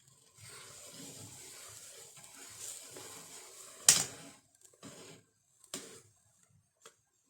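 Kitchen sounds: about four seconds of water-like rushing noise, cut by one loud sharp knock about four seconds in, then three short knocks spaced about a second apart.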